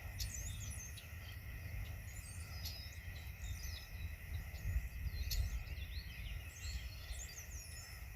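Several small birds chirping and trilling in short, high calls scattered throughout, over a low steady rumble.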